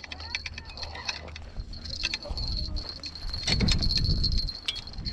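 Irregular small clicks and rattles of a fishing reel being handled, its drag just found to be set too loose, with a steady high-pitched tone behind.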